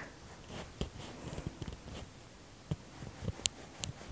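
Serrated bread knife cutting through a slice of bread on a bamboo cutting board: faint cutting sounds with a few light knocks of the blade and bread against the board, most of them near the end.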